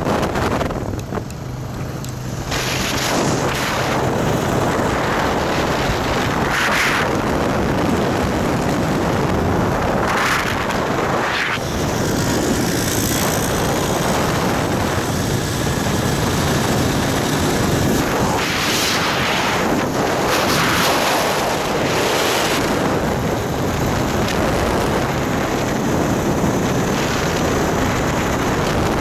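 Wind rushing over the microphone of a moving quad bike (ATV), with the quad's engine running underneath.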